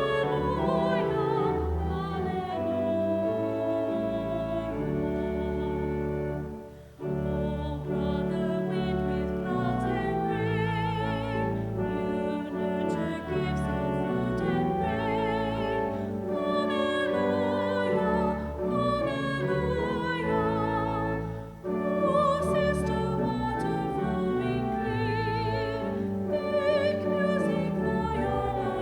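Church service music: a classical, operatic-style voice singing with vibrato over piano accompaniment, pausing briefly between phrases about 7 and 21 seconds in.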